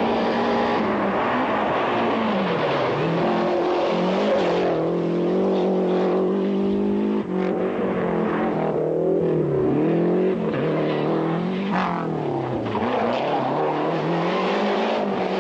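Rally car engine revving hard at full throttle, its pitch climbing and dropping over and over as the driver changes gear and lifts, with a short break about halfway through.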